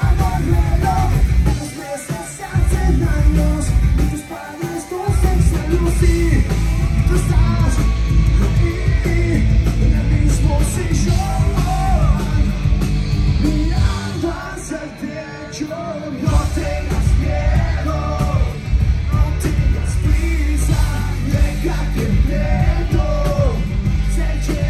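Pop-punk band playing live, a male lead voice singing over electric guitars, bass and drums. The bass and drums drop out briefly three times: about two seconds in, about four seconds in, and for a couple of seconds past the middle.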